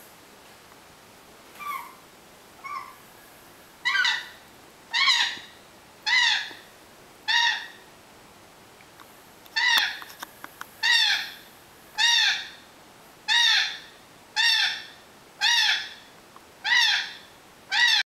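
African grey parrot giving a string of short hoot-like calls, about one a second, each note rising then falling in pitch. The first two are soft; after a brief pause with a few sharp clicks just past the middle, the calls go on evenly.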